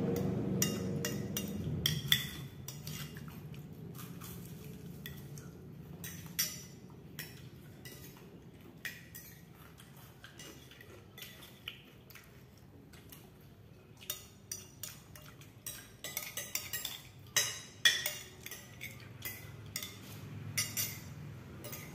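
Metal spoon clinking and scraping against a plate while eating, in scattered short clicks that come thicker near the end.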